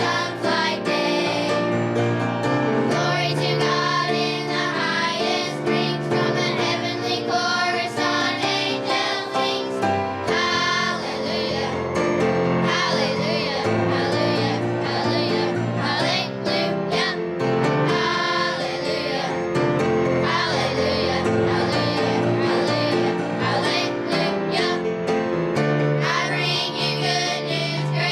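A children's choir singing a Christmas song over accompaniment.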